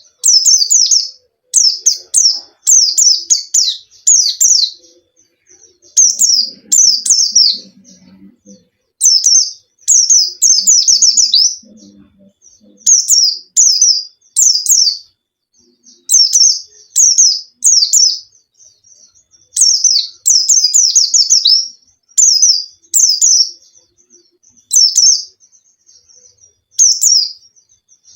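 White-eye (pleci, Zosterops) singing in full voice: repeated short bursts of rapid, high, falling twittering notes with brief pauses between them.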